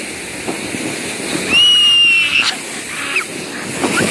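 A foam sled sliding down a snowy slope with a steady hiss of snow. About a second and a half in, a person lets out a high-pitched squeal held for nearly a second, and shorter squeaky cries follow near the end.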